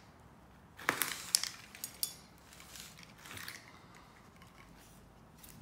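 Light handling clicks and taps as a small screw is fitted into an angle grinder's plastic housing by hand: a few sharp clicks about a second in, then a softer rustle about three seconds in.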